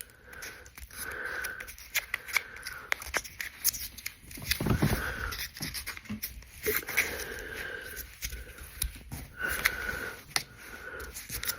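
Pennies clicking against one another as they are counted by hand: an irregular run of small, sharp clinks.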